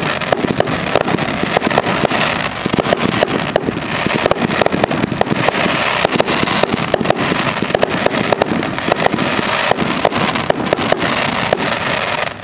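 Fireworks display in a dense barrage: many sharp bangs a second over a continuous crackle.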